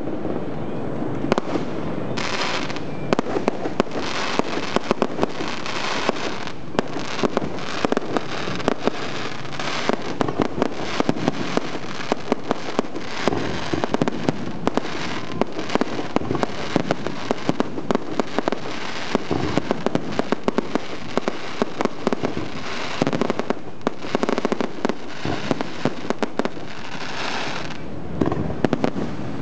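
Aerial fireworks bursting in a dense, continuous barrage: rapid crackling and popping packed with sharp bangs, with heavier bursts every few seconds.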